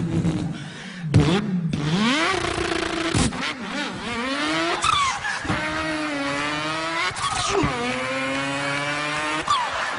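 A man imitating a race car engine with his voice. The pitch climbs and then drops sharply several times, like an engine revving and shifting up through the gears.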